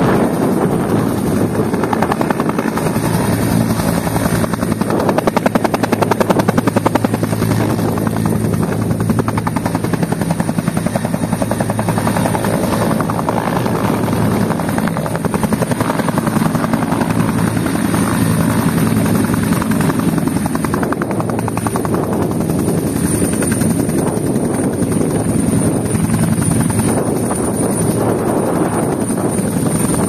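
Bell 212 helicopter hovering low, its two-bladed main rotor beating steadily over a high, steady whine from its twin turboshaft engines. The whine grows a little stronger in the second half.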